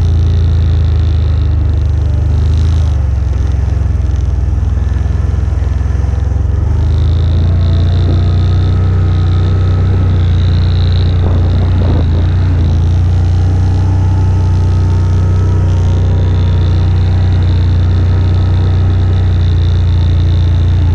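AODES 1000 quad bike engine running steadily under way, with a faint high whine coming and going. The engine note drops about three seconds in and comes back up about seven seconds in.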